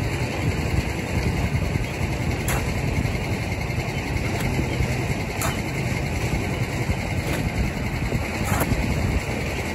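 An engine runs steadily at idle, with three short scrapes of a steel shovel in a wheelbarrow of wet concrete, about three seconds apart.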